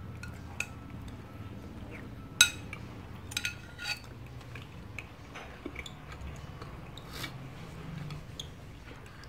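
Metal spoon clinking against a glass bowl while scooping cilok and soup: one sharp ringing clink about two and a half seconds in, a few lighter clinks around three and a half to four seconds, and another near seven seconds. A low steady hum runs underneath.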